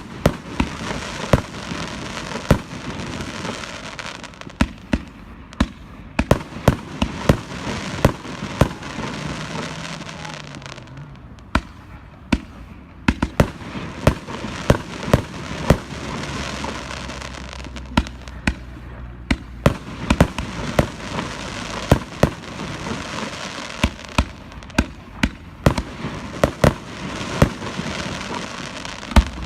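Fireworks display: a rapid string of sharp bangs from bursting shells over continuous crackling, easing off briefly twice before picking up again.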